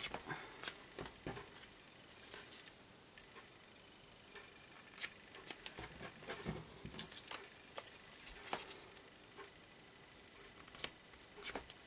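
Small punched paper circles being folded in half and creased between the fingertips: faint, scattered paper crinkles and light clicks.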